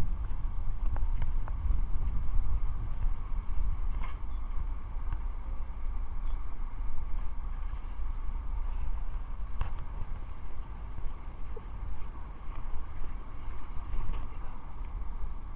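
Wind buffeting the camera's microphone, a heavy low rumble that rises and falls, with a few faint clicks.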